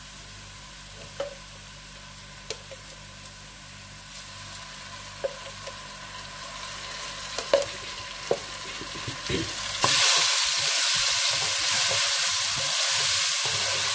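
Onions frying in hot oil in a pot, sizzling steadily, with a few sharp clicks of a spoon against the pot as they are stirred. About ten seconds in, the sizzle suddenly grows much louder and brighter as garlic and ginger go into the oil.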